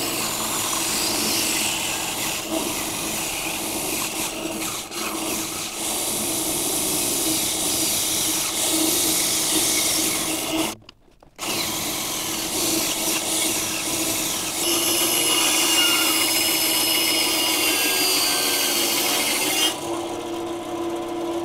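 Small benchtop bandsaw cutting a circle out of scrap plywood: a steady motor hum under the rasp of the blade in the wood, with a brief break of under a second near the middle. A higher whine joins the cut for a few seconds in the second half, then the cutting noise drops away near the end and the saw runs on. The saw is short of power in the cut, which the owner puts down mainly to a drive belt that needs replacing.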